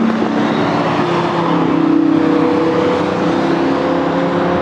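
Supercar engines running at speed on the circuit, a steady loud drone whose pitch steps up about a second and a half in.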